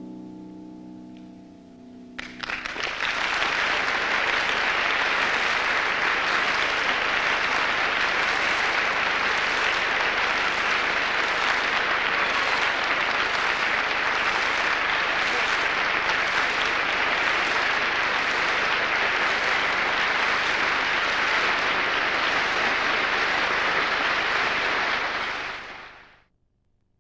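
The last piano chord rings away, then an audience bursts into steady applause that lasts over twenty seconds and fades out quickly near the end.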